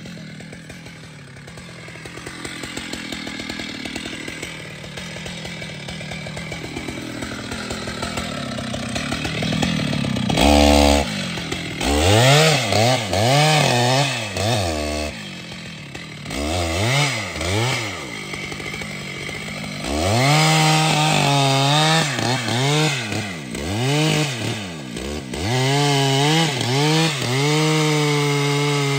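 Large two-stroke chainsaw running low at first, then revved again and again in quick throttle blips from about ten seconds in, and held at high revs near the end.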